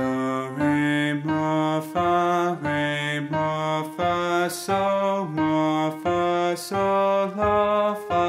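A male voice singing a C natural minor scale drill in stepping four-note runs (Do, Re, Maw, Fa; Re, Maw, Fa, So; and on upward), each note held about half a second, with quick breaths between runs.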